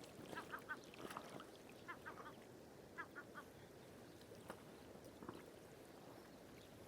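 Faint bird calls, each a quick run of three short notes, heard three or four times in the first few seconds over a soft background hush.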